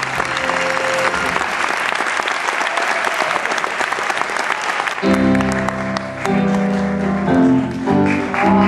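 Audience applauding over music. About five seconds in the applause thins and loud music of held chords comes to the front.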